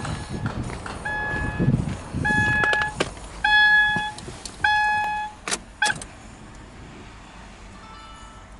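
An electronic chime beeping four times, about a second apart, each beep about half a second long. Low rumbling noise runs through the first two seconds, and a couple of sharp knocks come after the beeps.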